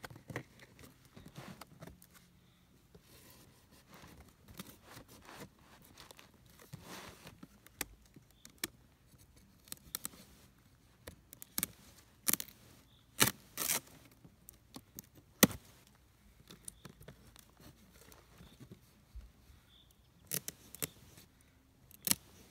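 Knife cutting and scraping along the packing tape and plastic straps of a cardboard box, with scattered sharp clicks and snaps.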